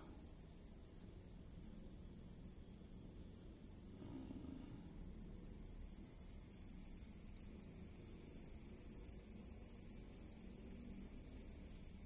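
A steady, high-pitched trill of night insects, unbroken throughout.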